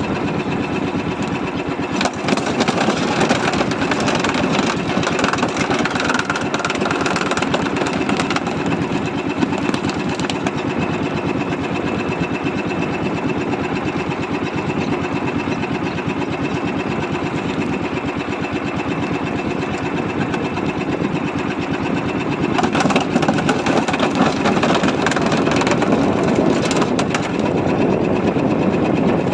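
A small boat engine running steadily with a fast, even rattle; it gets somewhat louder about three-quarters of the way through.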